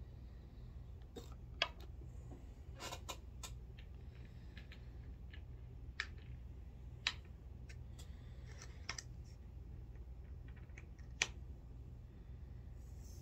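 Scattered sharp clicks and small clinks of brass cartridge cases and reloading tools being handled at a bench, with a few soft rustles between them and a steady low hum underneath.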